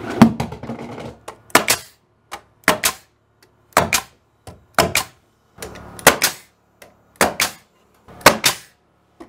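Pneumatic nailer firing about eight times, roughly once a second, each shot a sharp double crack, driving nails through a wood strip into wall studs.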